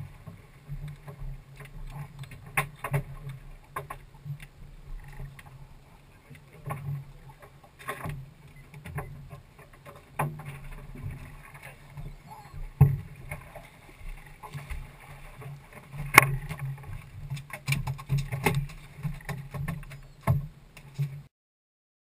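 Knocks and clatter of fishermen handlining snoek from a small open boat, with gear and fish bumping against the hull, over a steady low hum; the sound cuts off near the end.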